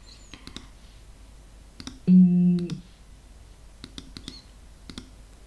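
Computer mouse clicks in small quick clusters while editing on a computer, with a brief held vocal sound about two seconds in.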